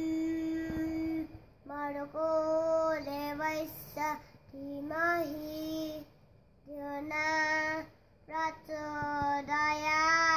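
A young boy singing a devotional song solo and unaccompanied, in long held, gently wavering notes, with short breaths between phrases.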